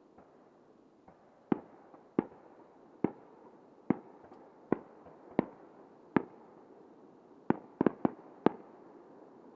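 Aerial firework shells bursting: about a dozen sharp bangs roughly a second apart, coming in a quick cluster near the end.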